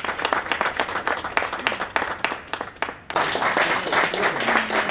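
Audience applauding: separate hand claps at first, turning suddenly denser and louder about three seconds in.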